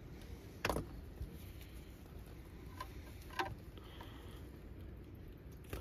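Faint handling noise: a few light clicks and knocks, the sharpest about a second in, over a low steady background.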